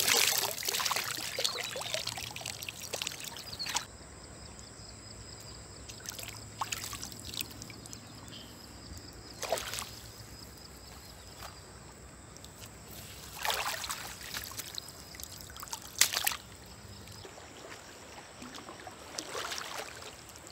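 River water pouring and splashing off a cast net and wet clothing as they are lifted and worked in the water. It is loudest in the first few seconds, then quieter, with a few short splashes.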